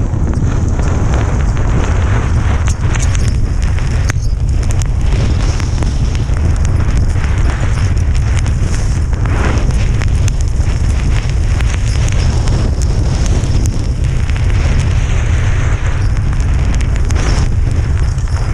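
Heavy wind buffeting the microphone in blizzard conditions: a loud, continuous low rumble with a rushing hiss over it.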